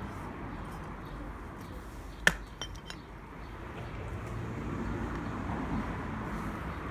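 A single sharp clink of a hard object about two seconds in, ringing briefly, followed by a few lighter clicks, over a steady low background rumble.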